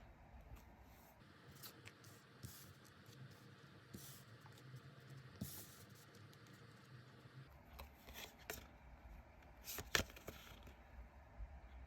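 Tarot cards being handled on a table: faint rustles, slides and scrapes of card, with a sharp tap about ten seconds in.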